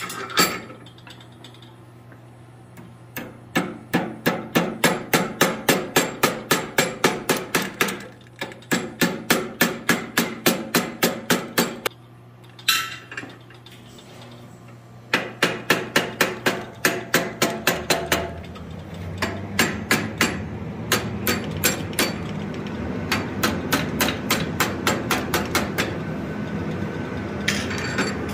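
Hand hammer striking hot steel on an anvil, shaping the wings of a forged woodpecker. It comes in four runs of quick, evenly spaced blows at about three a second, with short pauses between them. A steady low hum joins in the later part.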